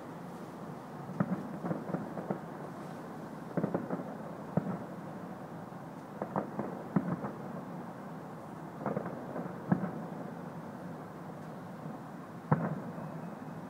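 Distant aerial fireworks shells bursting: a string of muffled booms and pops coming in clusters every second or two, with the sharpest about ten seconds in and near the end.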